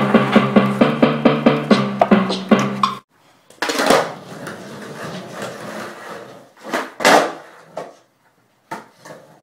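Music with a steady beat that cuts off about three seconds in. After it, skateboard wheels roll on a concrete floor, with a few sharp clacks of the board popping and landing, the loudest two near the middle.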